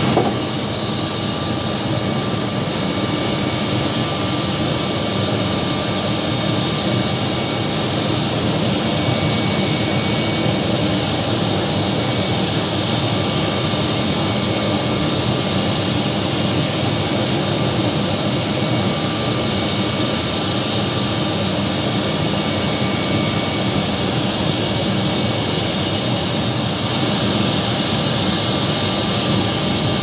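Steady jet-turbine noise of an airliner on the apron: a continuous roar with a high-pitched whine. One whine tone drops out near the end.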